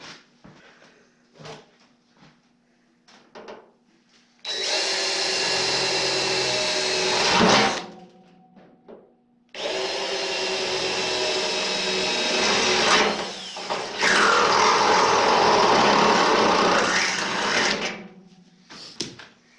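Cordless drill boring into the steel wall of a barrel in two runs, the first about three seconds long and the second about eight. Near the end of the second run its pitch sags and then recovers. A few light knocks of handling come before the first run.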